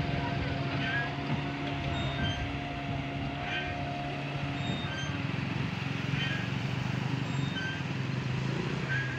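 A steady motor hum with a low drone and a higher whine that fades out about halfway through, over wind noise, with short high chirps repeating about once a second.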